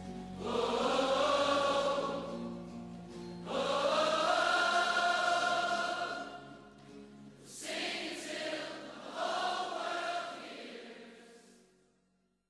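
Worship song outro: several voices singing long wordless notes over the music, in about four held phrases that fade out to silence near the end.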